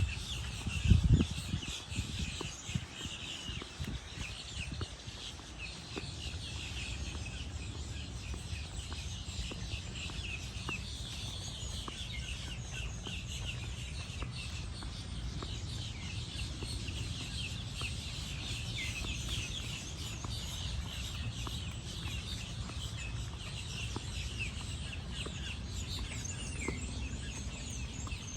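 Many birds chirping continuously over a steady low rumble, with a single thump about a second in.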